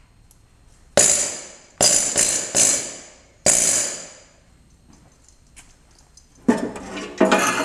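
Pneumatic needle scaler fired in five short test bursts, each a harsh metallic rattle with air hiss that fades as the trigger is let go. Near the end, rhythmic percussive music comes in.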